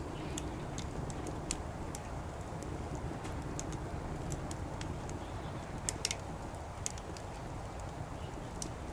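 Wood fire crackling in a fire pit: scattered sharp pops and snaps, a couple of louder ones close together about six seconds in, over a low steady background rumble.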